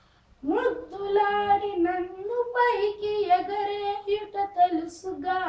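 A boy singing a Telugu ghazal solo, his voice coming in with a rising swoop about half a second in after a short pause, then holding long, ornamented notes.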